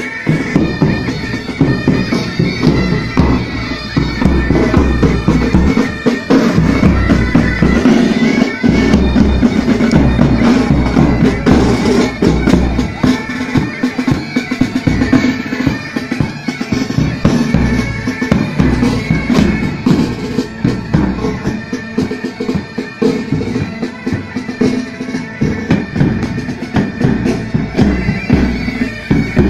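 Military pipe band playing: bagpipes sounding a steady, continuous tune over rapid side-drum rolls and bass-drum beats.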